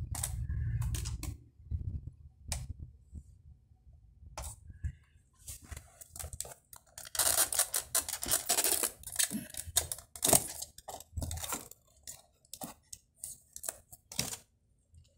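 Handling noise from a car stereo head unit being picked up and turned around on a bench: scattered clicks and knocks of its metal chassis and plastic faceplate, with a longer stretch of scraping and rustling about seven seconds in.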